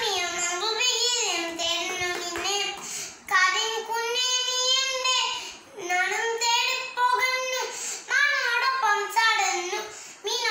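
A young girl singing alone, in long held notes that bend in pitch, in several phrases with short breaks between.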